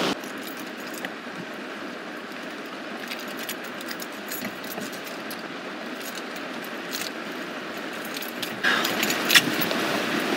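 Rain on a car heard from inside the cabin as a steady hiss, with keys jangling and being handled. The hiss gets louder about nine seconds in, with a few sharp clicks.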